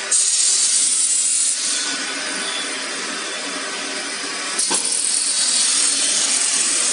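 Steady, harsh rasping machinery noise, with one sharp knock about two-thirds of the way through.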